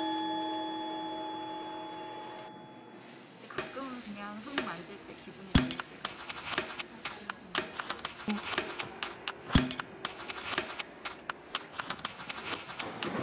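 A ringing chime tone fades out over the first three seconds. Then hands spread and press small gravel over a straw mat: scattered crunching, scraping and clicking of stones, with a few sharper knocks.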